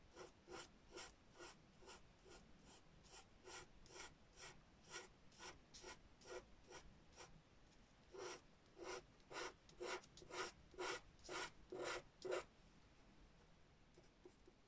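Faint scratching of a pastel pencil on dark pastel paper in short, quick strokes, about two a second, as fur is drawn in. The strokes get louder from about eight seconds in and stop a couple of seconds before the end.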